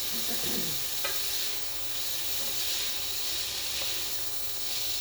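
Mushroom noodles sizzling in a hot frying pan: a steady hiss, with one light click about a second in.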